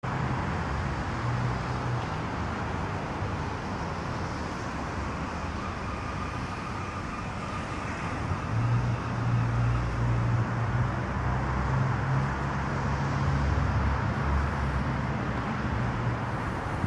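Steady road traffic noise, with a low rumble that grows heavier about halfway through.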